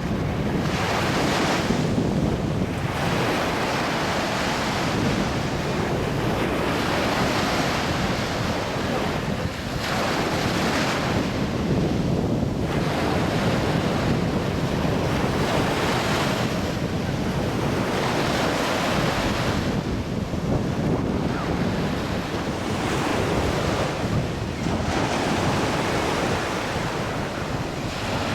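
Sea surf with waves washing in and swelling every few seconds, under steady wind noise on the microphone.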